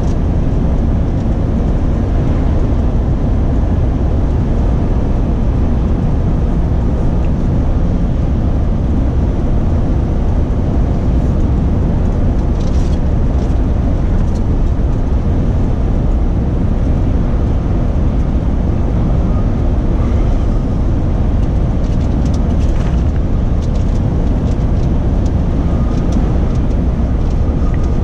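Renault Trucks T-range lorry at road speed, heard from inside the cab: a steady low rumble of diesel engine and tyres.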